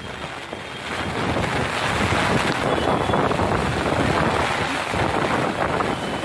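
Fast-flowing floodwater rushing and churning, mixed with wind buffeting the microphone; a little quieter for about the first second, then steady.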